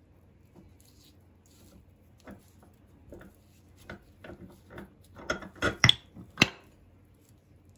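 Metal parts of a hand-cranked meat grinder clinking and knocking as the cutting blade and grinder head are handled and scraped clean. Scattered light clicks build to a few sharp knocks in the last third.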